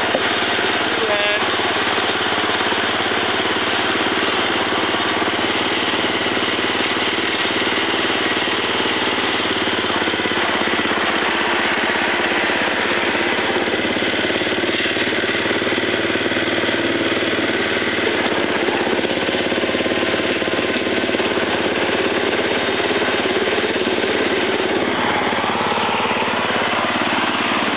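Arctic Cat Grass Cat lawn tractor's small engine running steadily.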